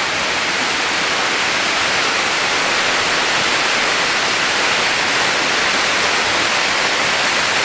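Waterfall rushing over rock: a steady, loud, unbroken rush of falling water.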